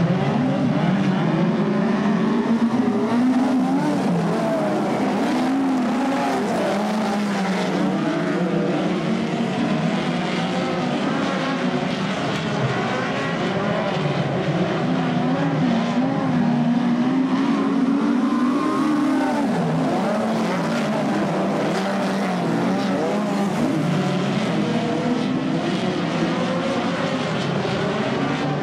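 Several speedcars (midget race cars) running at racing speed together, their engines overlapping, with pitch rising and falling continually as the cars accelerate and back off.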